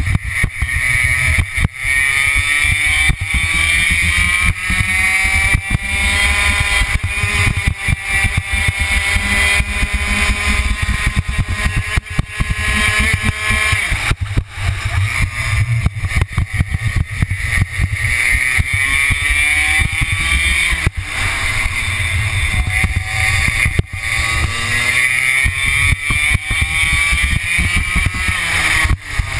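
Two-stroke kart engine recorded onboard, its pitch climbing steadily as the kart accelerates, falling away sharply about halfway through and then climbing again, with two shorter dips later. Wind buffets the microphone throughout.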